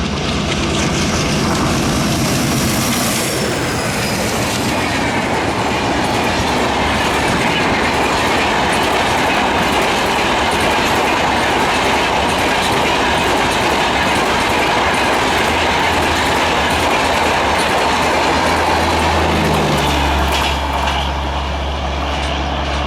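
Express passenger train behind a WDM-3D diesel locomotive running past at speed: a loud, steady rush of coach wheels clattering over the rail joints, with a high squeal in the first few seconds. The rush cuts off about twenty seconds in, leaving a low, steady hum.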